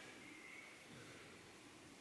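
Near silence: the quiet room tone of a small stone room.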